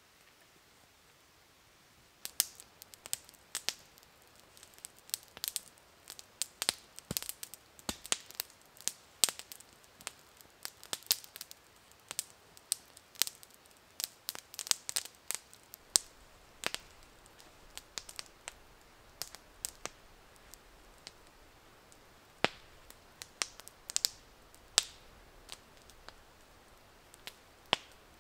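Small wood campfire of split logs and feather-stick shavings crackling as it catches, with sharp, irregular pops and snaps, several a second, starting about two seconds in.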